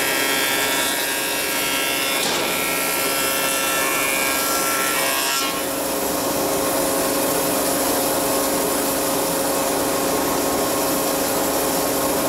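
Planer-thicknesser running and planing a rough-sawn tulipwood board, a loud steady cutting noise with a high whine; the cutting ends about five and a half seconds in and the machine runs on without load.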